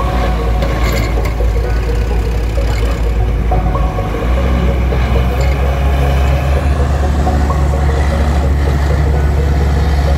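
Farm tractor's engine running steadily while hitched to a loaded boat trailer on sand, with a deep, continuous rumble that grows heavier about four seconds in.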